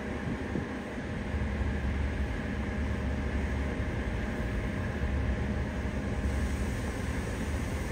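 Steady low drone of the Goodyear airship's propeller engines as it flies by.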